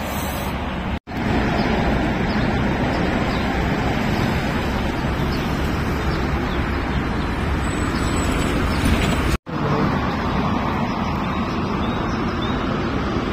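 Road traffic on a wide city street: a steady noise of cars driving past. The sound drops out for an instant twice, about a second in and again near the end.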